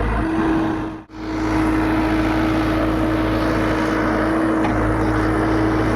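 Excavator's diesel engine running steadily under work, a constant drone with a steady whine. It drops out sharply for an instant about a second in, then resumes unchanged.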